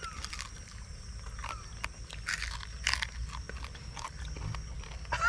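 Chewing and crunching on a crisp fried fish head, close by: irregular sharp crackles as the fried porquinho's head is bitten and chewed.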